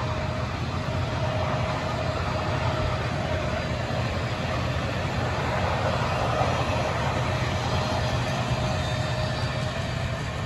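Union Pacific passenger cars rolling past on the track: a steady rumble of steel wheels on rail, with a faint steady high tone running underneath.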